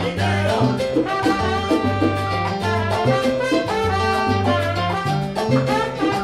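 Salsa band playing: a horn section holds lines over a bouncing bass line and percussion.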